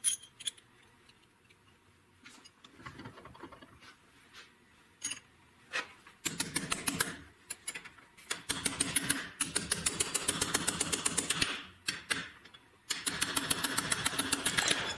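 Small 3/8-inch hand ratchet clicking rapidly in two long runs as connecting-rod nuts are run down on new rod bolts. A few scattered metal clicks and knocks come before it.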